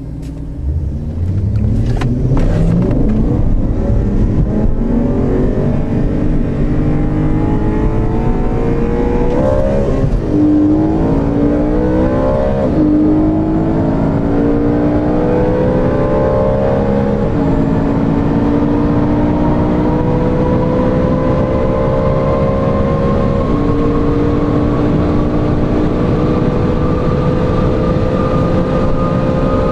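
Two BMW V8s, an E39 M5 with aftermarket exhaust and an E92 M3 with a DKG dual-clutch gearbox, accelerating hard side by side. The engine pitch climbs steadily and drops at each upshift, about four times.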